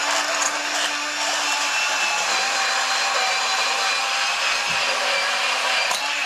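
Cordless portable band saw cutting through a piece of metal angle stock, running steadily through the cut and stopping abruptly near the end.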